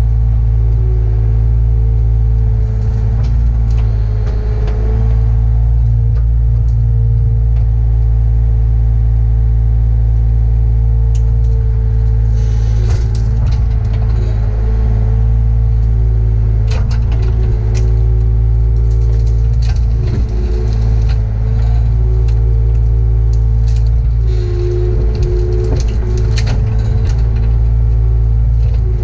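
Mini excavator's diesel engine and hydraulics running steadily, heard from inside the closed cab: a deep drone with a steady whine that dips in pitch now and then as the boom and bucket work. Scattered cracks and clatter of buckthorn brush being torn out and moved by the bucket.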